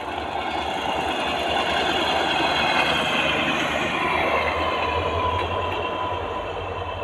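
Motorised track-testing trolley running along the rails with a steady engine hum as it passes, loudest about three seconds in and then fading as it moves away.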